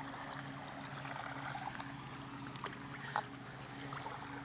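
Pool water lapping and splashing gently over a steady low hum, with small scattered clicks and one sharper click about three seconds in.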